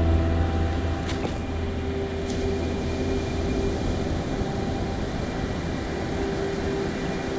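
Steady rushing noise of surf breaking on a sandy beach, with wind on the microphone, under a soft held music tone. The music's fuller chords drop away about a second in.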